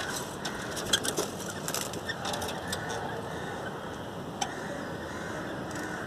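Caged budgerigars giving soft scattered clicks and short high chirps over a steady background hiss. The clicks cluster in the first two seconds, with a single sharper tick about four and a half seconds in.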